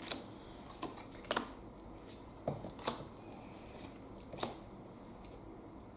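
Magic: The Gathering trading cards handled by hand while being flipped through: about six short, sharp card snaps at uneven intervals.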